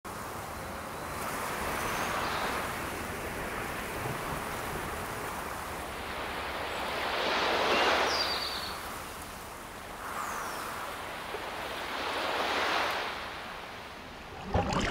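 Surf washing up a sandy beach: three slow swells of wave noise, each rising and falling away, the loudest about halfway through, with a few short high chirps over it.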